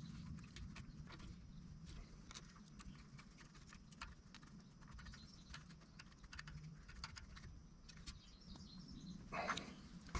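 Faint scattered clicks and taps of a wrench and feeler gauge working the valve rocker-arm adjusters of a diesel engine, over a low steady hum.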